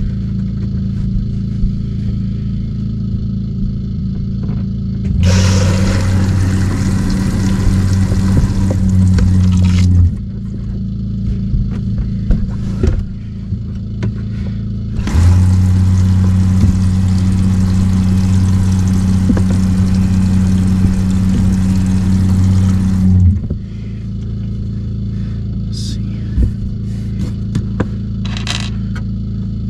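RV fresh-water pump running in two spells, about five seconds and then about eight seconds. Each spell is a steady hum with a hiss of water, as the newly plumbed sink lines are pressurised to check for leaks. A steady low hum lies underneath throughout, with a few clicks near the end.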